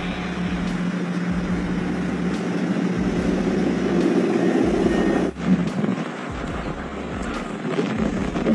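A vehicle engine running steadily under broad outdoor noise and low rumble; the sound changes abruptly about five seconds in.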